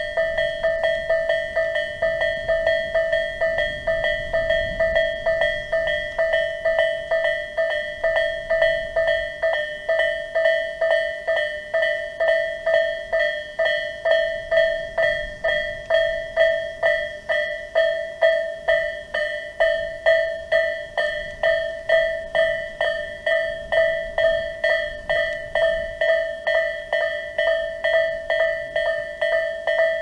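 Electronic warning bell of a Japanese railway level crossing, sounding Tobu Railway's 'A' tone: a bright metallic ding repeated in a steady, rapid rhythm of about two to three strikes a second, the sign that the crossing is closed for an approaching train.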